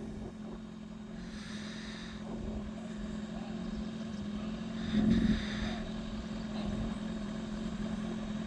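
Steady low engine hum with a low rumble underneath, swelling a little about five seconds in.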